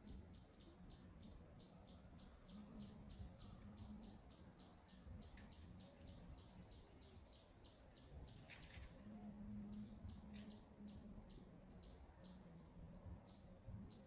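Faint, rapid, even chirping of a small creature, about four high chirps a second, broken briefly past the middle, with a few sharp clicks.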